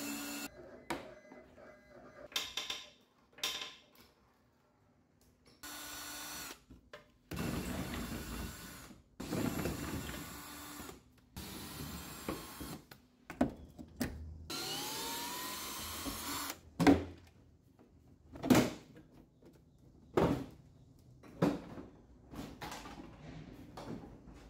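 An 18 V cordless drill with a socket bit backing out the bumper cover's bolts in several short runs, one spinning up with a rising whine. Near the end come several sharp plastic knocks as the bumper cover is worked loose.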